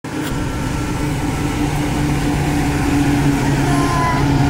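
GE U20C diesel-electric locomotive passing close by, its engine running with a steady low hum that grows slowly louder.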